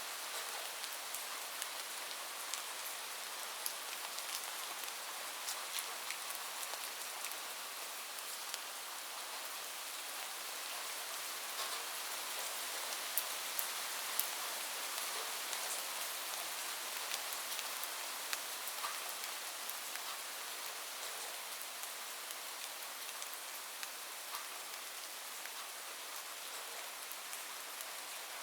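Steady rain falling on a roof, an even hiss with individual drops ticking sharply here and there.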